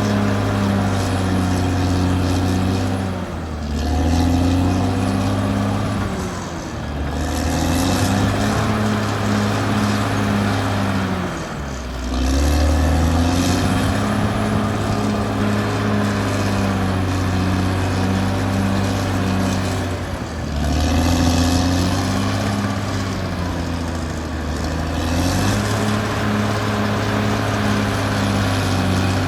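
Caterpillar D6R XL bulldozer's diesel engine working under load, its pitch dipping and recovering about five times as the load on the blade and tracks changes.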